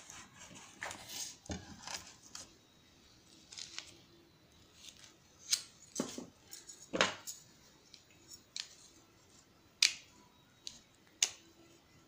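Hand tools and small metal and rubber parts clicking and knocking on a wooden workbench, irregularly, with some scraping in the first couple of seconds. Several louder sharp clicks come in the second half.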